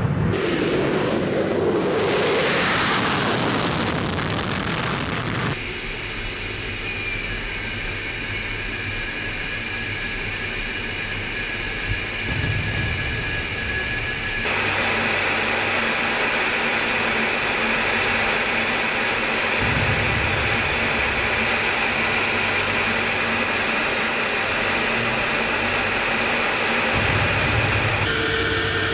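MiG-31 jet engines on the takeoff run: a loud rush of jet noise that sweeps upward in pitch as the aircraft passes and cuts off about five seconds in. Then steady engine noise heard inside the cockpit, a constant hum with a high whine, which changes character abruptly about fourteen seconds in.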